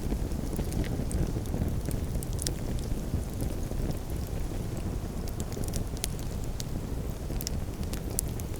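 Campfire burning: a steady low rush under scattered sharp crackles and pops from the burning wood.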